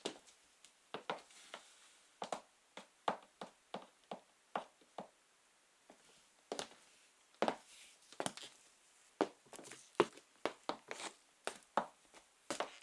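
High-heeled sandals tapping on a hard floor in a slow walk: sharp heel clicks about one or two a second, with a short pause near the middle.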